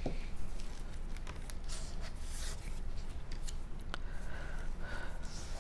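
Cardstock pieces being handled, with light rustling and scattered small taps and clicks of paper on a work surface.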